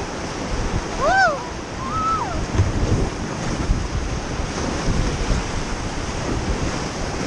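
River water rushing steadily, with wind buffeting the microphone. Two short rising-then-falling cries come about a second and two seconds in.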